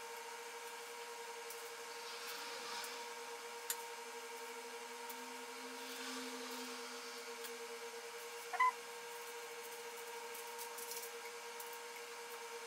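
Faint steady hum under quiet handling sounds: soft rustles and a click as cut rounds of biscuit dough are lifted onto greaseproof paper on a baking tray. A short squeak comes about eight and a half seconds in.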